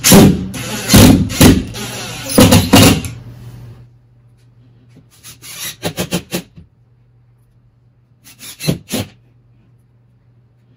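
Cordless drill driving screws through a drywall ceiling patch into the wooden backer board behind it, in spurts: a run of them over the first three seconds or so, another group around the middle and a brief one near the end.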